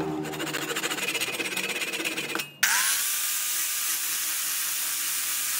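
Hand saw cutting wood with quick, even strokes. After about two and a half seconds the saw stops, and an angle grinder fitted with a sanding disc spins up with a rising whine and runs with a steady whine. Near the end it starts to wind down.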